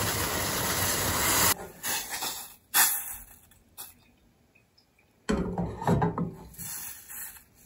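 Water boiling in a small stainless steel saucepan, a steady hiss that stops suddenly about a second and a half in. Then a spoon scrapes and stirs around the pan, dissolving instant espresso in the hot water, in short scrapes with a quiet gap around the middle.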